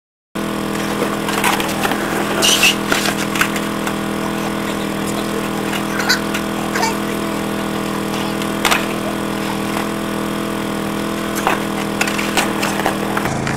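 Skateboards knocking and clattering on concrete in scattered sharp clacks, over a steady hum.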